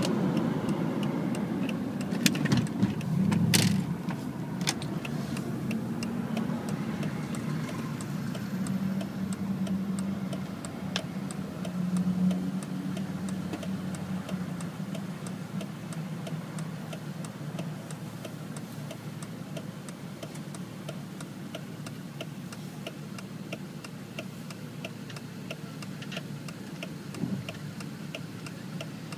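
Car engine and road noise heard inside a car as it slows and settles to idle in stopped traffic, with a few sharp knocks a few seconds in. A turn-signal indicator clicks steadily through most of it.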